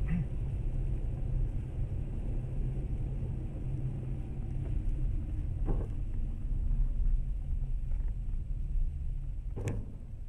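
Steady low rumble of a car on the road. There is a faint knock a little past halfway and a sharper knock near the end.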